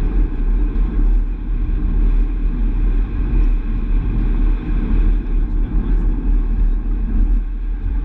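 Astra GTC driving along the road, heard from inside the cabin: a steady low rumble of engine and tyre noise with no sudden events.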